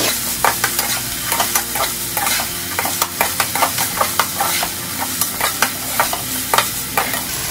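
Cubed potatoes and green beans sizzling in hot oil in a nonstick kadai while a perforated metal spoon stirs them, with frequent sharp taps and scrapes of the spoon against the pan.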